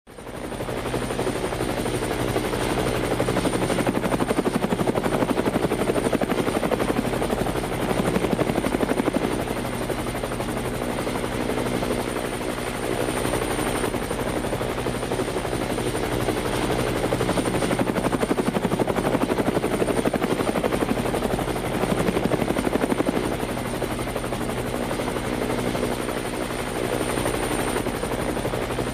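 Helicopter in flight: fast, steady rotor-blade chop over a continuous engine hum, with a thin high whine throughout. It fades in over the first second, then swells and eases gently a few times.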